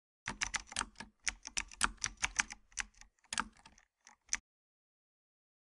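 Typing on a computer keyboard: a quick, uneven run of key clicks that stops about four seconds in.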